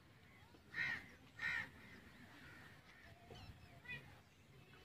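Two short bird calls about half a second apart, followed by a few fainter chirps near the end.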